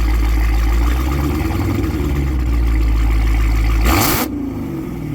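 Supercharged 6.2-litre Hellcat HEMI V8 swapped into a Chrysler 300, running with a deep, steady exhaust rumble. About four seconds in comes a brief loud rush of noise, after which the engine runs a little quieter.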